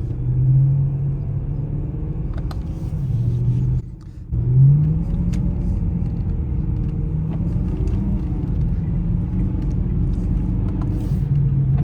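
BMW E92 M3's 4.0-litre V8 running at cruise on a snow-covered road, with a steady rumble of engine and tyres. About four seconds in the sound briefly drops away, then the engine note rises in pitch before settling back to a steady cruise.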